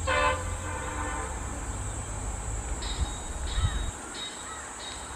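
A distant train horn ends a short blast right at the start, its sound trailing off over about a second above a low rumble. Later, birds chirp with several short high calls.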